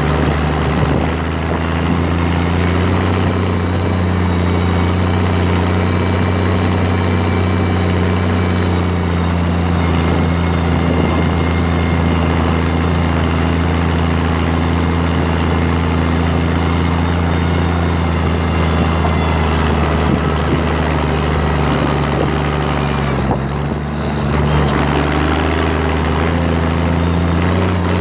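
Valtra BH180 tractor's diesel engine running steadily through a straight-pipe exhaust while pulling a trailer, with a deep, even drone. About 23 seconds in, the engine note dips briefly and then comes back up.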